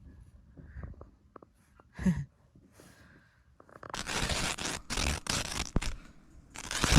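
Rustling and scraping in several loud bursts, starting about four seconds in, after a quiet stretch with a few small clicks.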